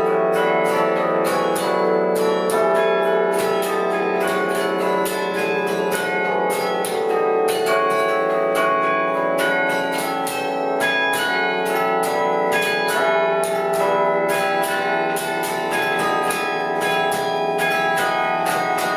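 Background music of bright, bell-like struck notes ringing over one another above sustained tones, at a steady level.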